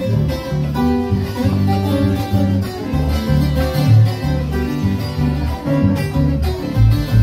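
Colombian string trio playing a bambuco: one tiple plucking the melody, a second tiple strumming the accompaniment, and an electric bass underneath with strong, moving bass notes.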